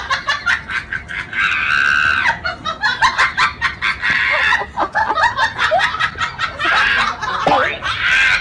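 Husky screaming and yowling in rapid shrill bursts, with two longer drawn-out screams about two seconds in and near the end.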